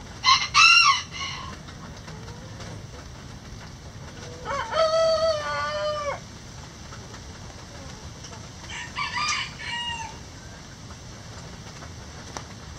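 Roosters crowing three times: a short crow just after the start, a long full crow with a drawn-out held note about four seconds in, and a shorter crow about nine seconds in. A steady hiss of rain runs underneath.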